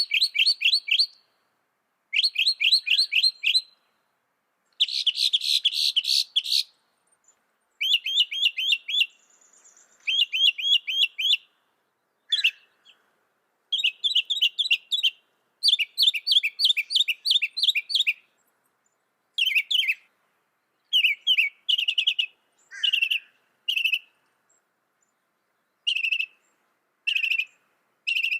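Mockingbird singing: a string of varied phrases, each a quick run of the same high note repeated many times, broken by short pauses.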